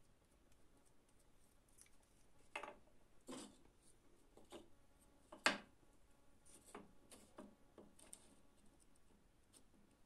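A few faint knocks of small wooden blocks being set down on a plywood workbench, the loudest about five and a half seconds in, against near silence.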